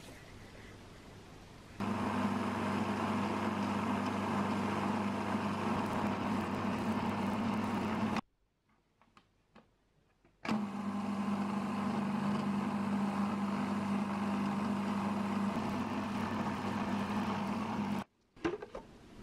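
Food processor motor running steadily as its blade grinds hazelnuts into a crumbly meal that is starting to clump into paste. It starts about two seconds in, stops for about two seconds midway, then runs again and stops near the end.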